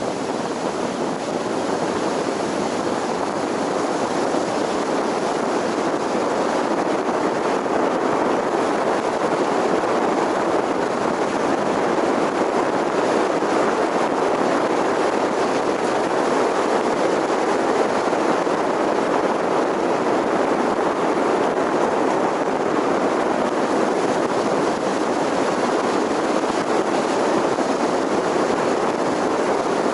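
Steady road and wind noise of a vehicle driving: an even rush with no engine note or single event standing out.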